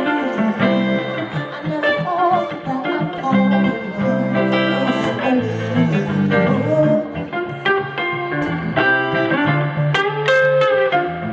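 Live band music: an instrumental passage led by guitar over a moving bass line, with little or no singing.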